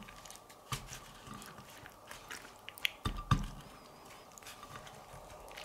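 A few light clicks and soft knocks from handling the folded steak wrap and its plate or cutlery, the loudest a pair of dull thumps about three seconds in.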